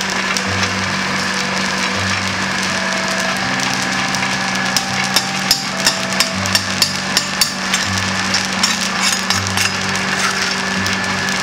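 Roasting coffee beans rattling and hissing as they are stirred in a large roasting pan. About halfway through comes a run of sharp scraping strokes, roughly three a second, as a brush sweeps along the pan's rim. Background music plays throughout.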